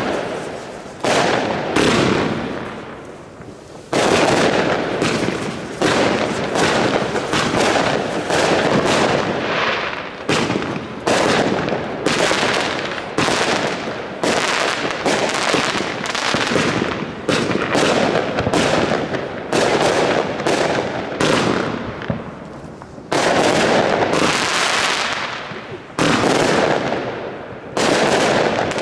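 Aerial fireworks from firework batteries firing shot after shot: a dense run of sharp bangs, roughly one or two a second, each dying away quickly, with a short lull about two seconds in.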